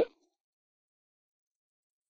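Silence: the tail of a spoken word in the first instant, then no sound at all.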